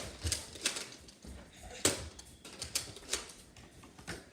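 Foam-dart blasters being fired and worked during a Nerf battle: about eight irregular, sharp plastic clicks and snaps, the loudest right at the start and about two seconds in.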